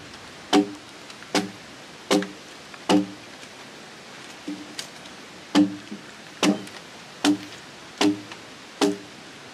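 Yoki (Japanese axe) blades chopping into a Japanese cedar (sugi) log to hew it flat. There are steady blows about one every 0.8 s, each a sharp hit with a short hollow knock from the log. Near the middle there is a pause with two lighter taps.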